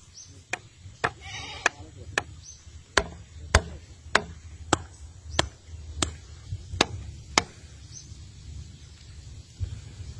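A hammer striking the top of a post to drive it into the mud: about a dozen sharp blows, a little over one a second-and-a-half apart at first and settling into a steady beat of under a second each, stopping about three-quarters of the way through.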